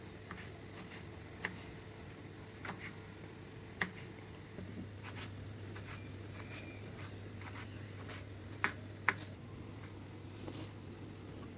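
Kitchen knife dicing tomato and slicing paneer on a wooden chopping board: scattered light taps of the blade on the board, with a few sharper clicks. A steady low hum runs underneath.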